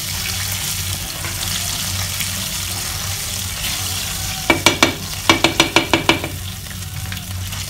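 Garlic and sweet paprika sizzling in hot oil in a pan while a wooden spatula stirs them. About four and a half seconds in come two quick runs of short beeps, four then six, from the glass-ceramic hob's touch controls as the heat is adjusted.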